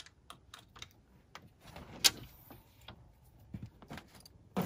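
Light clicks, rattles and knocks of gear being handled and stowed in a 4WD's lift-up side-window storage compartment, with one sharp knock about two seconds in.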